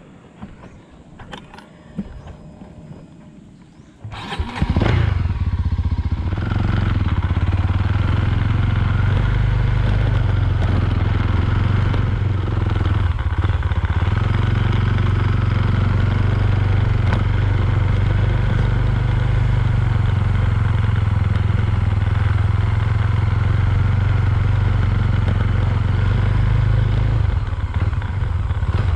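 A few faint clicks, then a small Suzuki motorcycle's engine starts about four seconds in and runs steadily as the bike rides off along a dirt track, easing briefly near the end.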